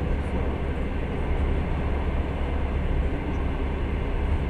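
Passenger train carriage running along the track, heard from inside: a steady low rumble of wheels on rails under an even running noise.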